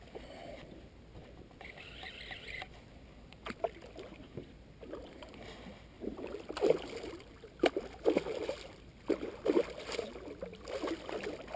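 A hooked redfish thrashing and splashing at the surface beside a skiff, quieter at first, then in irregular splashy bursts through the second half.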